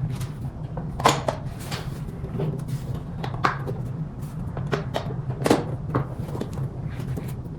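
Handling of scooter parts during reassembly: a handful of sharp clicks and knocks, the loudest about a second in and about five and a half seconds in, over a steady low hum.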